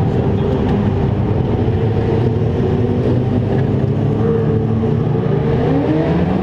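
Mini sprint race car engines running on a dirt track, a loud steady drone, with one engine revving up in rising pitch in the last couple of seconds.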